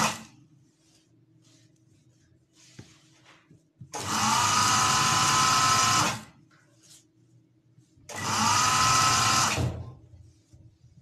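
Electric sewing machine stitching in short runs. One run ends just as the sound begins, then the machine runs twice more for about two seconds each, its whine rising as it speeds up at each start, with a faint steady hum between runs. It is sewing the topstitch along a trouser waistband.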